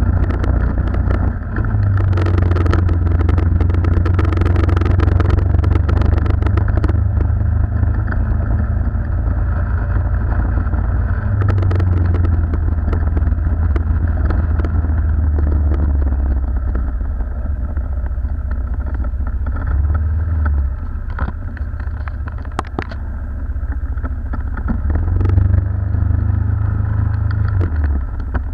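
Riding a motor scooter: a small engine runs under a heavy low wind rumble on the microphone that swells and eases with speed, with occasional short rattles.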